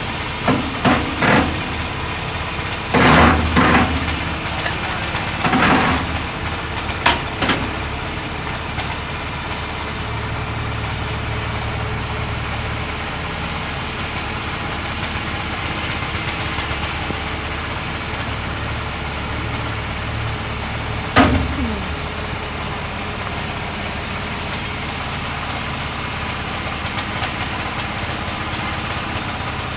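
An engine idling steadily, with several loud knocks or clatters in the first eight seconds and another about 21 seconds in.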